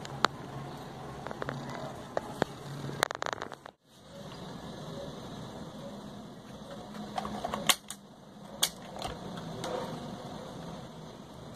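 Scattered light clicks and taps of hands and multimeter probes working on a small drone at a bench, over a steady low hum. The sound drops out briefly just before four seconds in.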